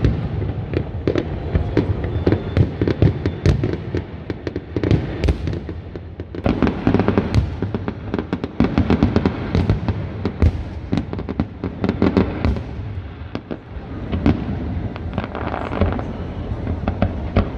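Fireworks display: a dense run of sharp bangs and crackles, several a second, over a steady low rumble of shell bursts.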